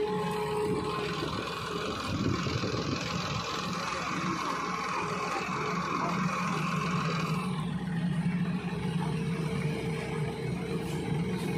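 SANY crawler excavator's diesel engine running steadily under load. A rushing hydraulic noise rides on top while the bucket digs into the dirt, and it eases about seven seconds in as the loaded bucket swings up toward the truck.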